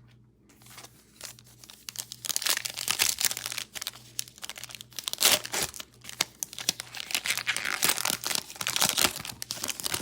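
A foil trading-card pack being torn open and its wrapper crinkled and crumpled by hand: a brief quiet, then a run of crackling that starts and stops over several seconds.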